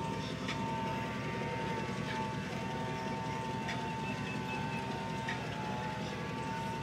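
Engine idling steadily, a constant low rumble with a steady high-pitched whine held over it.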